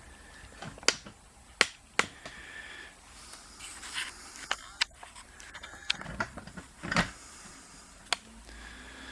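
Hammer tapping on the threaded shaft end of a VW generator part clamped in a vise, to drive it out: about eight sharp, irregular metal knocks.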